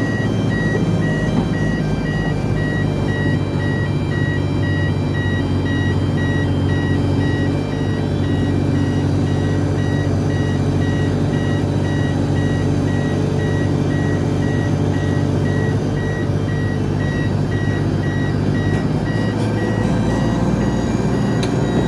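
Construction vehicle's engine running steadily while its reversing alarm sounds a high beep at an even, repeating rhythm.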